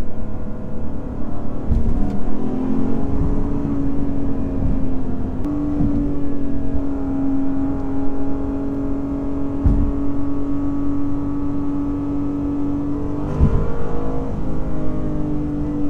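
Lexus IS500 F Sport Performance's 5.0-litre naturally aspirated V8 running under light load, a steady engine note that steps up in pitch twice in the first few seconds and then holds level, wavering briefly near the end before settling again.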